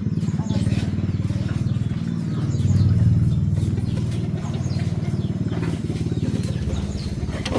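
A small engine running steadily with a rapid low pulsing, getting a little louder about three seconds in.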